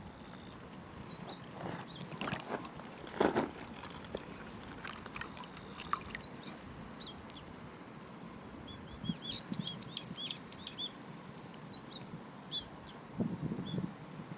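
Small birds chirping in quick runs of short, high notes, busiest about two thirds of the way through. A few sharp knocks or splashes stand out, the loudest about three seconds in.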